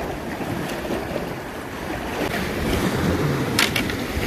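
Sea surf washing against a rocky shore, mixed with wind buffeting the microphone, as a steady rushing noise. A couple of brief sharp clicks come about three and a half seconds in.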